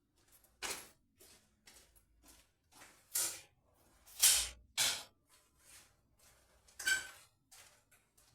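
An irregular series of short scraping and sliding noises, about a dozen over eight seconds, as wooden parts are moved and handled. The loudest comes about four seconds in.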